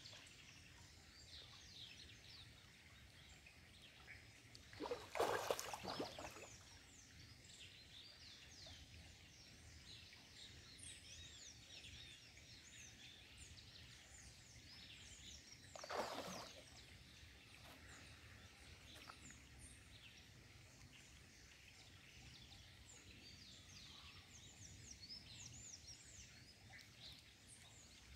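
Quiet outdoor ambience with many small birds chirping on and off throughout. Two brief louder rushes of noise come about five and sixteen seconds in.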